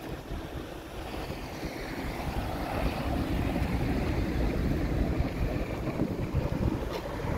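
Wind buffeting the microphone over the low rumble of a boat's engine and rushing water, growing louder over the first few seconds.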